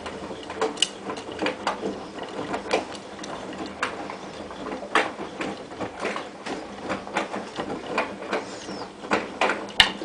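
Hotpoint-Ariston AVXXF137 washer-dryer drum turning during a wash, its motor humming steadily under many irregular clicks and knocks from the load tumbling inside.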